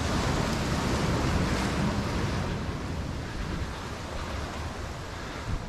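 Sea surf breaking and washing against the boulders of a rock breakwater. The rush swells over the first two seconds, then slowly ebbs.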